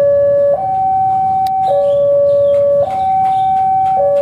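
Electronic warning alarm of a railway level crossing sounding a lower and a higher note in turn, changing about once a second, as the crossing is closed for an approaching train.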